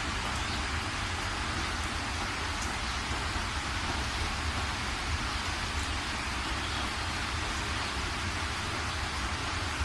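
Steady outdoor night ambience: an even rushing hiss with a low rumble underneath, unchanging throughout.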